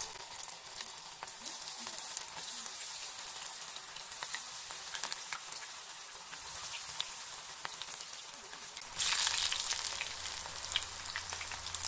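Gram-flour-battered cauliflower pakoras sizzling and crackling as they deep-fry in hot oil, with a steady hiss and many small pops. The sizzle grows louder about nine seconds in.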